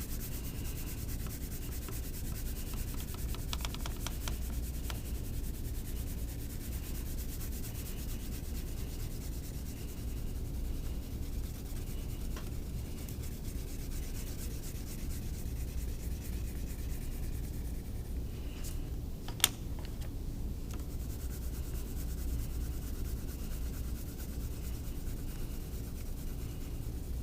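Wax crayon scrubbing back and forth on paper, colouring in a large area in a steady, continuous scratchy rub. One sharp click about two-thirds of the way through.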